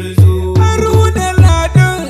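Hausa praise song (wakar jinjina): deep drum beats that drop in pitch, a few each second, under a melody line.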